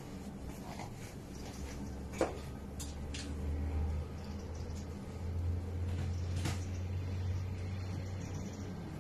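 Laundry being handled on a metal clothes-drying rack: a few light clicks and knocks, the sharpest about two seconds in, over a low steady hum.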